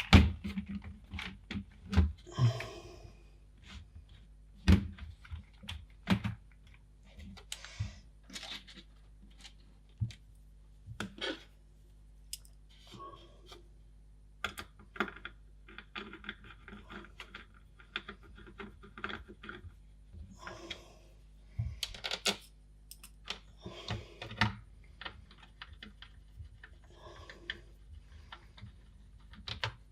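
Irregular clicks, knocks and plastic rattles of a Commodore 64C's keyboard and plastic case being handled and fitted back together, louder at the start.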